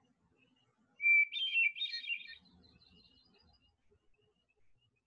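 Recorded hermit thrush song: one flute-like phrase about a second in, opening on a clear held note and breaking into a quick flourish of higher notes, with faint scattered notes trailing after it.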